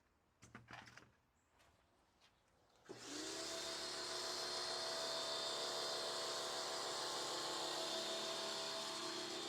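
Pressure washer starting up about three seconds in and then running steadily: a constant motor whine with the hiss of the water spray.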